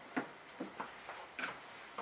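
Scattered light clicks and taps, about six in two seconds, as a pneumatic air hammer is handled and set against the aluminium flange of a wing rib, with the hammer not running.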